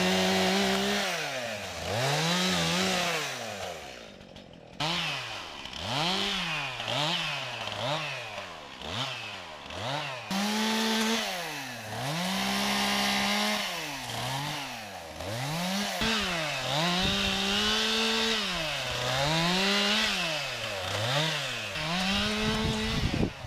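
Stihl chainsaw limbing felled trees: the two-stroke engine is revved up to full throttle for short cuts, holds there for a second or two, then drops back to idle, a dozen or more times in quick succession.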